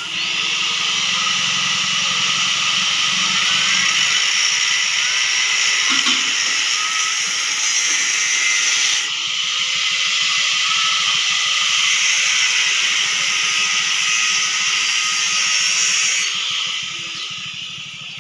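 Angle grinder with a cutting disc running steadily under load, cutting galvanized steel pipe. It dies down near the end.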